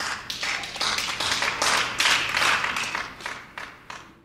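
A congregation clapping: many hands in quick, irregular claps that die away just before the end.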